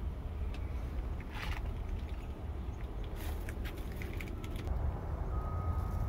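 Low, unsteady outdoor rumble with a few brief rustles and light clicks. A short steady high note sounds near the end.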